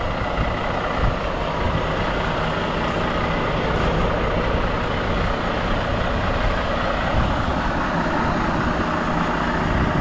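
Semi truck's diesel engine running, a steady even drone.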